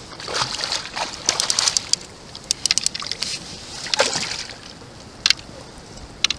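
A hooked salmon thrashing at the water's surface beside a kayak, making a string of sharp, irregular splashes that are heaviest in the first two seconds and again about four seconds in.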